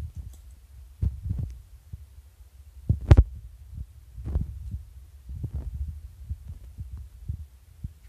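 Irregular low, muffled thuds and bumps from a handheld camera being carried by someone walking, with one sharp knock about three seconds in.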